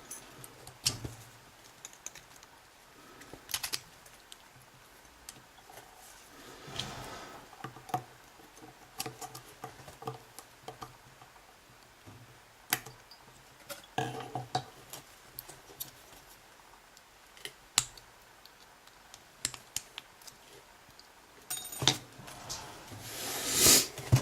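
Metal tools clicking, tapping and scraping against a padlock as it is forced apart to get its retaining clip off, in scattered short clicks with a longer scrape near the end.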